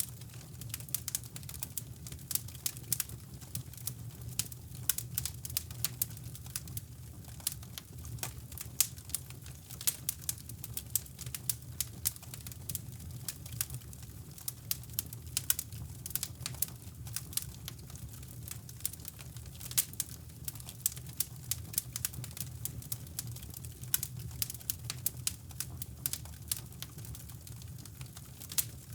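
Wood fire crackling in a fireplace, with many irregular sharp pops and snaps, over a steady low brown-noise rumble.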